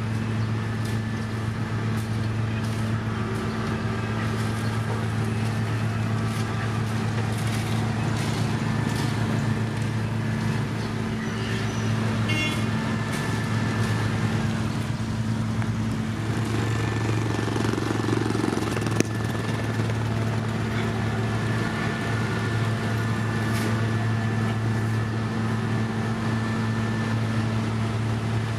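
Heavy road-paving machinery's diesel engine running steadily at a constant speed, with a few scattered clicks and knocks.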